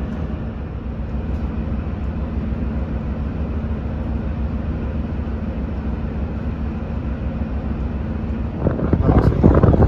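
Steady low running rumble of a diesel train, heard from inside the passenger cabin. Near the end a louder, rough gusting starts: wind on the microphone.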